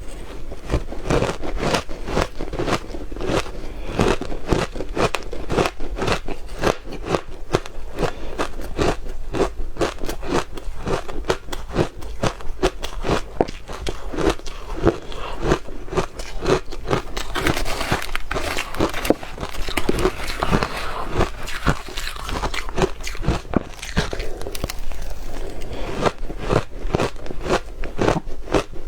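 Soft, powdery freezer ice and crushed ice being bitten and chewed close to the microphone: a rapid, steady run of crunches that turns crisper and hissier a little past the middle.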